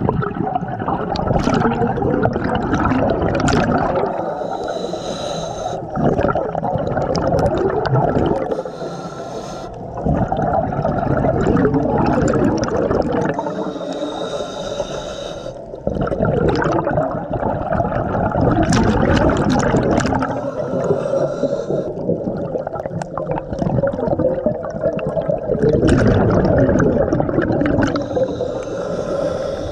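Scuba diver breathing through a regulator underwater: a hissing inhale, then the rushing bubble noise of the exhale, repeating in cycles of a few seconds.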